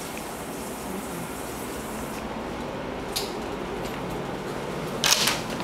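Steady hiss of restroom ventilation, with a faint click about three seconds in and a short, louder clatter near the end as a toilet stall door is pushed open.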